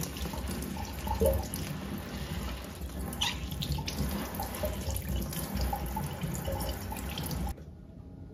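Kitchen tap running into a stainless steel sink, the stream splashing over green onions as they are rubbed clean by hand. The running water cuts off suddenly near the end.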